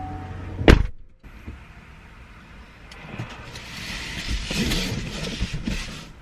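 A car's pulsing warning chime stops, and the car door shuts with one sharp thump less than a second in. A few seconds later comes a swell of hiss with a few light knocks.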